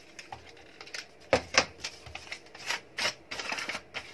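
Wrapping paper crinkling and rustling as it is folded and handled around a small box, with a few sharp crackles, the loudest two close together a little over a second in.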